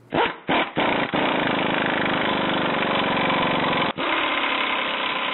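First-generation Cummins 5.9-litre inline-six turbo-diesel cranking over with a few stuttering bursts, catching about a second in and settling into a steady idle.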